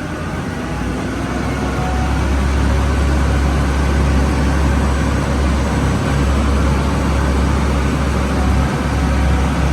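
Tour boat's engine running under way: a steady low drone, building a little over the first couple of seconds and then holding even.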